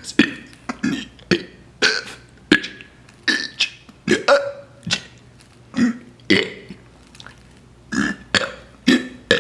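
A person burping over and over in quick succession, about fifteen short burps, one after another with brief pauses between them.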